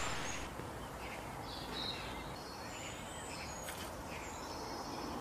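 Steady outdoor background hiss with scattered faint, short, high-pitched chirps, and a single sharp click about two-thirds of the way through.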